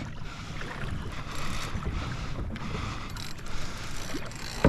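Wind buffeting a hat-mounted GoPro's microphone over water moving around a kayak, with a short sharp knock near the end.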